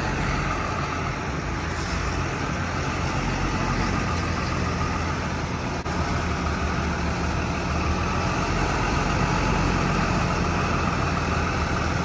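Truck engine idling and running steadily at low revs, a continuous deep drone.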